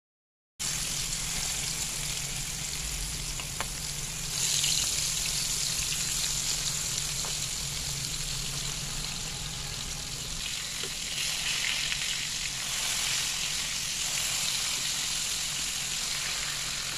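Marinated fish steaks frying in hot oil in a pan: a steady sizzle that cuts in abruptly and swells a little about four seconds in and again near the end.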